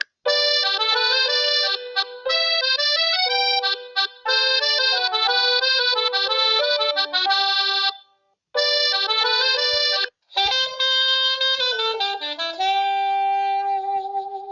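A run of stock Huawei Y6 Pro ringtone and notification melodies played one after another. Each is a short synthesized tune of a second to a few seconds that breaks off abruptly before the next one starts.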